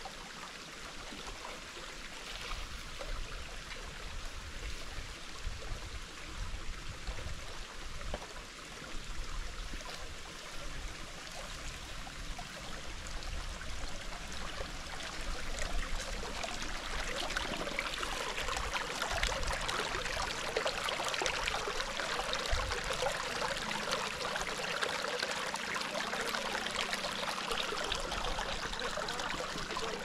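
Shallow stream trickling and babbling over stones and pebbles, a steady rush of water that grows louder about halfway through.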